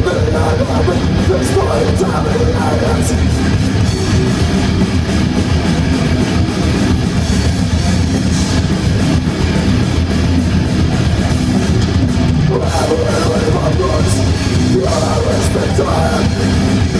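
Death metal band playing live through a PA: distorted electric guitars and bass over a drum kit, loud and without a break.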